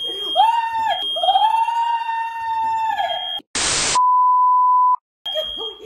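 A smoke alarm sounding its steady high tone, set off by cooking smoke, while a woman lets out long high shrieks over it. About three and a half seconds in, this cuts to a short burst of TV static and then a steady test-tone beep lasting about a second.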